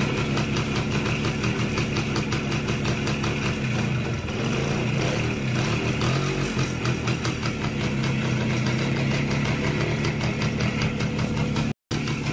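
Voskhod-2M motorcycle's 175 cc two-stroke single-cylinder engine idling steadily, freshly started, with a split-second gap of silence near the end.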